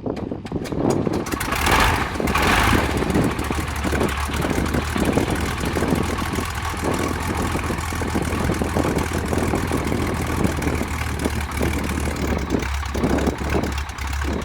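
Cessna 175's Continental GO-300 geared flat-six engine starting: a few uneven firing pulses, a loud surge about two seconds in as it catches, then running steadily at a low idle.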